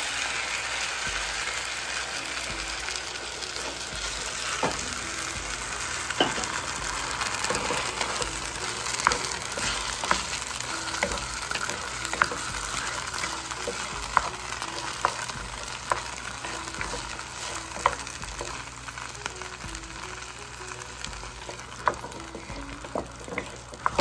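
Food sizzling in a hot pan as it is stir-fried, with sharp clicks of a utensil striking the pan every second or so.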